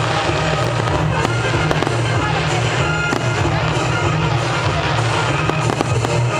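Fireworks bursting and crackling in quick succession over loud music.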